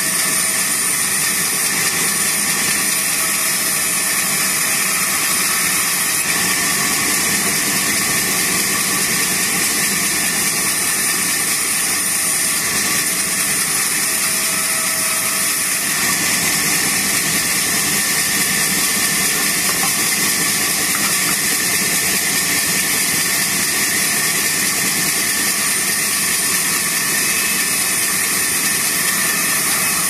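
Large sawmill band saw running steadily while it resaws a teak plank, with a continuous high whine over the machine noise.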